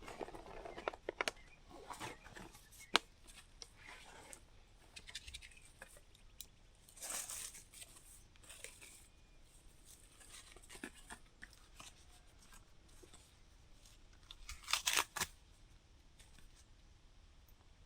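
Intermittent rustling and crinkling with scattered sharp clicks, and two louder rustling bursts about seven and fifteen seconds in.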